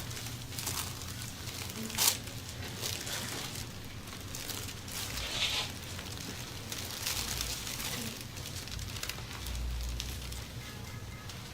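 Rustling and crinkling from handling during a chiropractic treatment, with one sharp click or pop about two seconds in.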